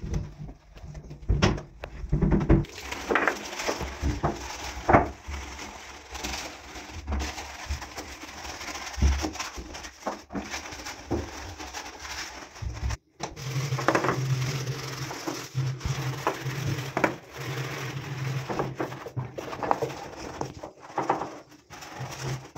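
A wet, soapy sponge scrubbing glass and tile: irregular rubbing strokes, with a sudden break about halfway through.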